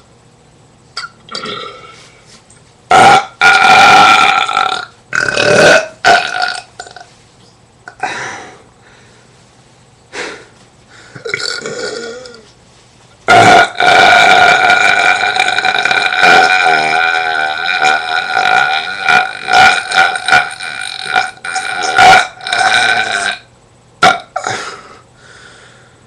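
A man burping loudly again and again. There are short burps about three and five seconds in, then a very long, drawn-out burp of several seconds starting about halfway through, which breaks into a run of shorter burps near the end.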